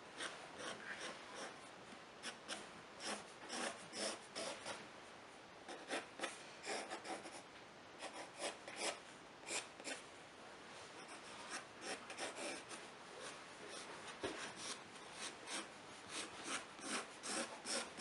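Pencil scratching across paper in quick, irregular strokes, a few a second, as the lines of a face's hair are sketched in.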